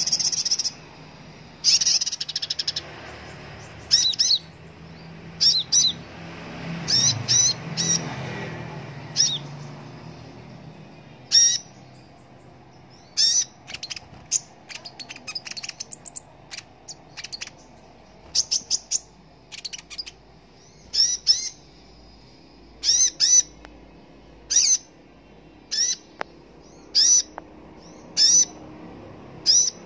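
Male Van Hasselt's sunbird (kolibri ninja) singing: high, sharp chirps, often in quick groups of two to four, repeated every second or two.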